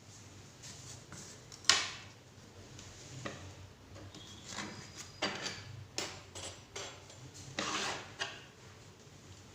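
Handling sounds of a 3-in-1 hair styler used as a curling tong: a sharp click a little under two seconds in, then scattered lighter clicks and knocks and a stretch of rubbing as hair is wound around it.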